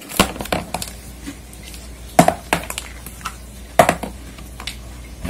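A ping-pong ball batted by a cat, knocking against the floor and walls of a clear plastic storage box: a scatter of sharp, light knocks, some in quick pairs.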